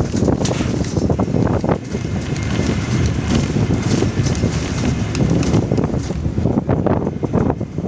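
Wind buffeting the microphone, over the rumble of a vehicle driving along a road.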